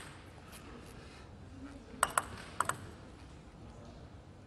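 Table-tennis ball bounced before a serve: four quick, sharp clicks about two seconds in, over faint hall ambience.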